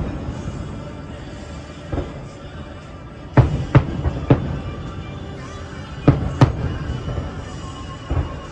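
Distant fireworks shells bursting, about seven sharp booms with an echoing tail, several in quick pairs, over the music of the fireworks show.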